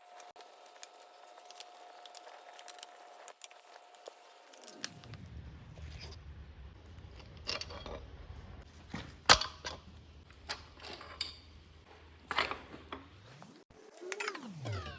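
Scattered light metallic clinks and taps, the sharpest a little over halfway through, typical of tools and small metal parts being handled. Near the end there is a short falling squeal.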